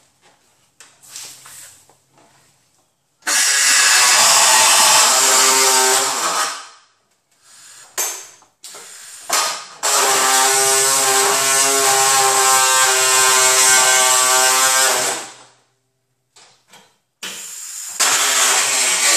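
Reciprocating saw cutting through the sheet-metal radiator support of a car, run in three bursts: about three seconds a few seconds in, a longer run of about five seconds in the middle, and another starting near the end. Short knocks and clicks fall in the pauses between runs.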